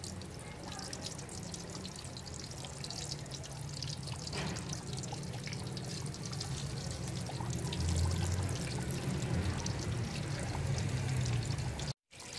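Battered baam fish pieces deep-frying in a large pot of hot oil: a steady sizzle of dense fine crackles over a low rumble. The sound cuts out briefly near the end.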